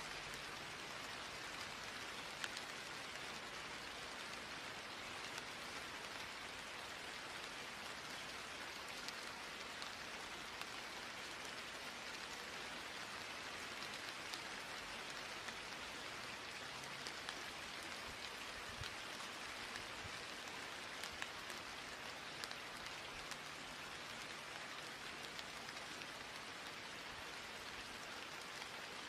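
Steady rain on a surface: an even hiss with scattered ticks of single drops.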